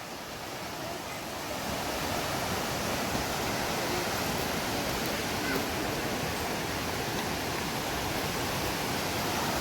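Steady rush of flowing creek water, growing a little louder over the first two seconds and then holding even.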